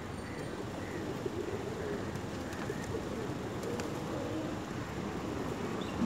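A large flock of feral rock pigeons cooing, many low coos overlapping one another without a break.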